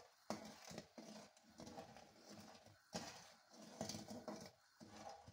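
Faint sound of a slotted metal spatula stirring through rice boiling in foaming water in a metal pot. It gives irregular scrapes and a few sharp knocks against the pan, the clearest near the start and about three and four seconds in.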